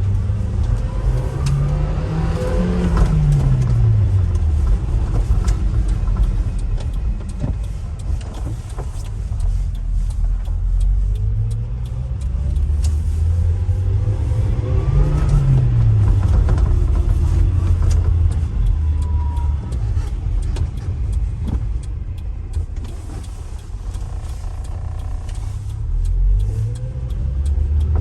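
The 1995 Subaru Sambar's supercharged EN07 engine, a 660 cc inline four, running and revving up three times, each time climbing in pitch and then easing back down.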